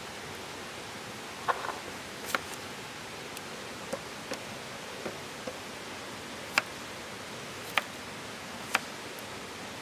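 Wood campfire crackling: sharp, irregular pops, roughly one a second, over a steady hiss.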